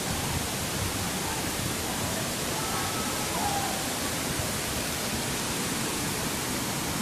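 Wide waterfall pouring into its plunge pool: a steady, even rushing of falling water.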